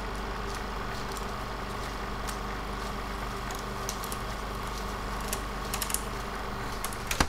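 A steady hum with a few faint clicks scattered through it.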